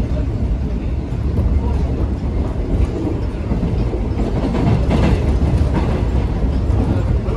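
Seoul Subway Line 1 train running: a steady low rumble with the wheels clacking over rail joints, a little louder about five seconds in.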